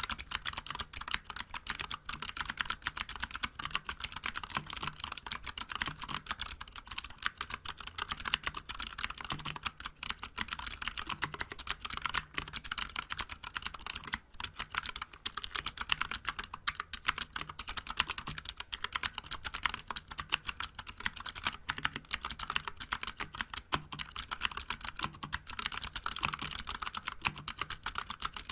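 Continuous fast typing on a Vortex Vibe mechanical keyboard with clicky Cherry MX Blue switches and SA-profile keycaps: a dense, uneven stream of sharp key clicks.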